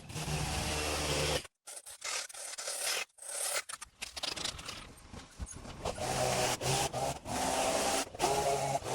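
Lawn mower engine running steadily, then cutting off abruptly about a second and a half in. Rough, irregular scraping and rubbing follows, broken by near-silent gaps, and a steady engine hum comes back for the last few seconds.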